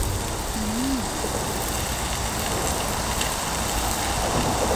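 Soju poured from a glass bottle into an open aluminium beer can, liquid running into the can near the end, over a steady outdoor hiss.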